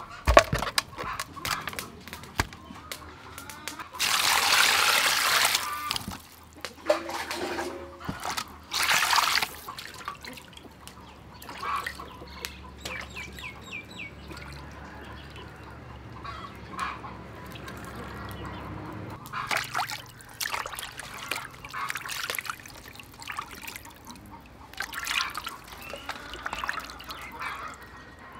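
Water splashing and trickling as raw chicken wings are rubbed and rinsed by hand in a metal basin, with small repeated splashes and drips. Two louder rushes of splashing come about four and nine seconds in.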